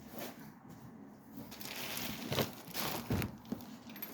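Scraping and rustling handling noise with a few short knocks in the second half, as a car's wheel and tyre is lifted back onto the hub.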